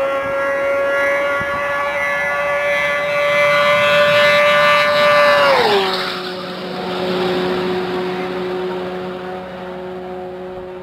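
Motorcycle at full throttle passing at very high speed: a high, steady engine note that climbs slightly as it approaches, drops sharply in pitch as it goes by about five and a half seconds in, then holds lower and fades as it moves away.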